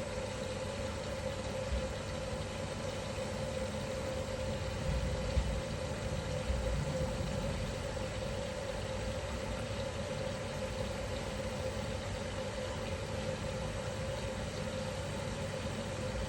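Asko 1605 dishwasher running its wash cycle: water rushing and spraying inside the tub over a steady hum, with a few dull knocks about five to seven seconds in.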